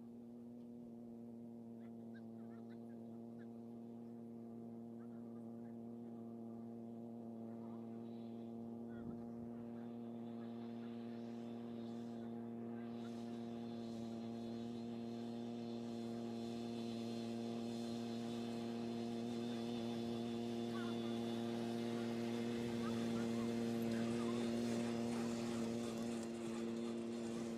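A steady motor hum holding one constant pitch, slowly growing louder.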